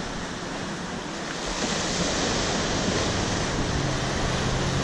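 Ocean surf breaking and washing through shallow water as a steady rushing, with some wind on the microphone. The wash grows louder about a second and a half in.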